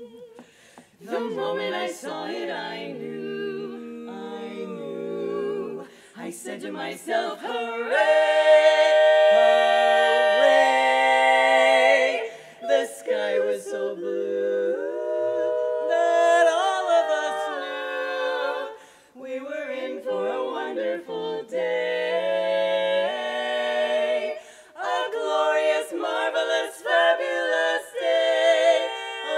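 Women's barbershop quartet singing a cappella in close four-part harmony, with long held chords loudest from about eight to twelve seconds in.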